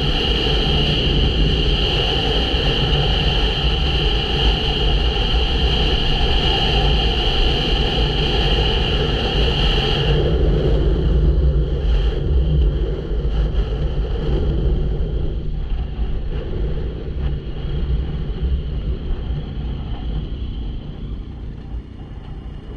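Adventure motorcycle riding on a hard-packed gravel road: engine running, tyres on gravel, wind on the microphone. About ten seconds in, a steady high whine drops away, and the sound grows quieter toward the end as the bike slows.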